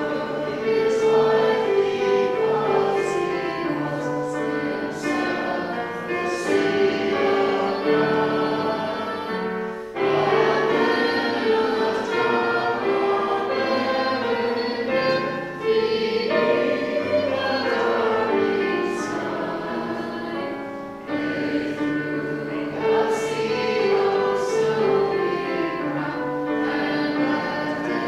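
Slow church music of held chords that move from one to the next every second or two, with a choir-like sound.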